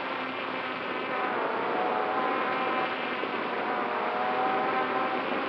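FPV drone's electric motors and propellers buzzing in flight, heard from its on-board camera: a steady whine over rushing noise, its pitch wavering up and down with the throttle.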